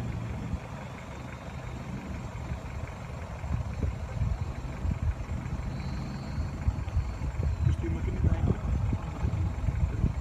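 Off-road 4x4's engine running at low speed as it crawls over a rocky riverbed track, with frequent knocks and crunches from the tyres and suspension on the stones, more of them from about three seconds in.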